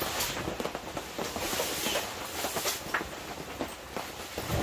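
Rain falling steadily on a canvas wall tent, with canvas rustling, footsteps and a few sharp knocks as someone pushes through the door flap and walks in.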